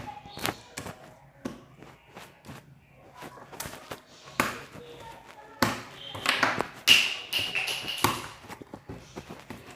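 Irregular taps and knocks, with a louder, busier cluster of them about six to eight seconds in.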